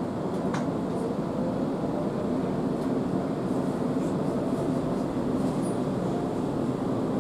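Interior running noise of an ES2G Lastochka electric multiple unit car: a steady rumble and hum of the train in motion, with one light click about half a second in.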